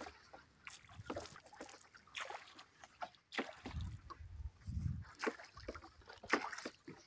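Scattered light knocks and clicks of gear being handled aboard a small open fishing boat, with a few low rumbles about four and five seconds in.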